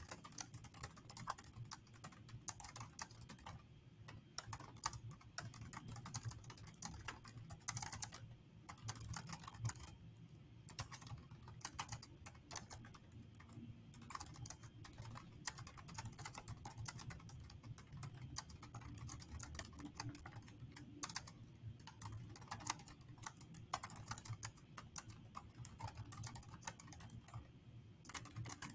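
Faint, fast, irregular clicking of a computer keyboard as a sentence is typed, with brief pauses now and then.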